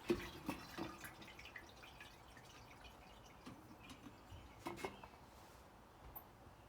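Light clicks and taps of small parts and tools being handled during carburetor disassembly, a quick cluster in the first second and another about four and a half seconds in.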